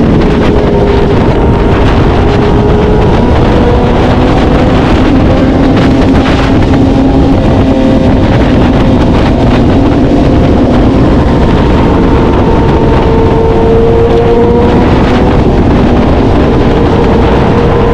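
Engine running at high, slowly wavering revs, under heavy wind rush on the microphone, as from a vehicle travelling fast.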